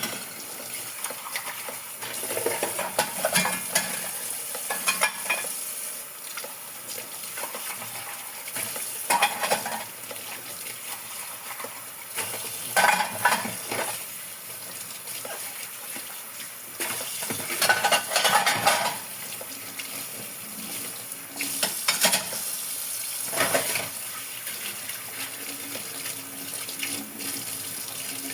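Dishes being washed by hand at a sink: water running and splashing steadily, with irregular louder bursts of dishes and utensils clinking and being rinsed every few seconds.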